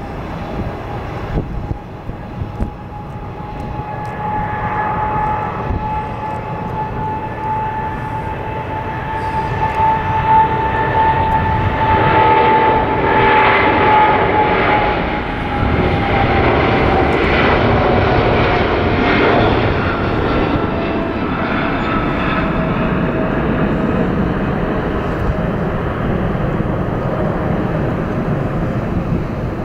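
Boeing 777-200's General Electric jet engines at full takeoff thrust: a loud rumble under a high fan whine, growing to its loudest about halfway through as the jet rolls past. The whine then sinks steadily in pitch as the airliner lifts off and climbs away.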